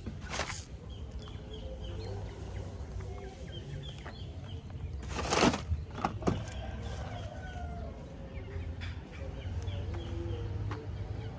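Chickens clucking now and then over a steady low rumble of wind on the microphone. Plastic blister packaging of toy sets rustles as it is handled, briefly just after the start and loudest about five and a half seconds in.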